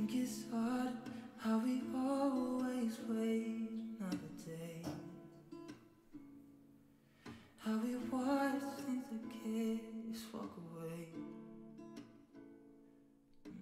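Background music: acoustic guitar strumming under a singing voice, in two sung phrases with a quieter guitar passage between them.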